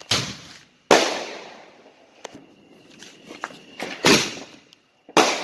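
Consumer fireworks going off: four sharp bangs, one at the start, the loudest about a second in, then two more near the end, each trailing off.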